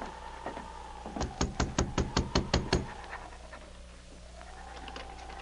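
Radio-drama sound effect of rapid knocking on a cabin's wooden door, about nine quick even knocks a second into the sound, against the wavering whistle of a winter wind effect.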